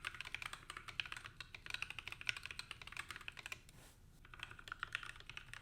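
Typing on a Moonlander Mark I split mechanical keyboard with lubed and filmed Gateron Black linear switches, dampened with case foam and PE foam: a quick run of keystrokes that pauses briefly a little before the four-second mark, then goes on.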